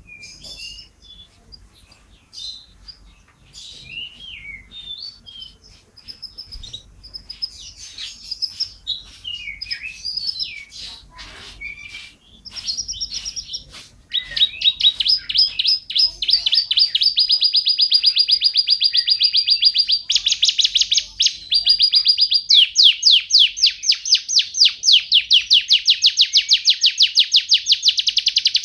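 Domestic canary singing: varied chirps and twittering phrases, breaking about halfway in into long, loud rolling trills of fast, evenly repeated notes.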